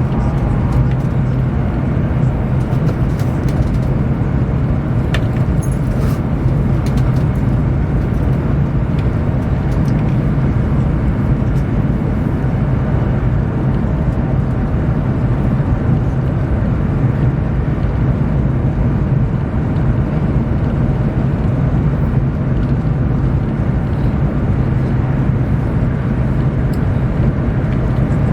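Cabin noise inside a Chinese high-speed train running at speed: a steady, even rumble and rush with a low hum underneath that holds without change.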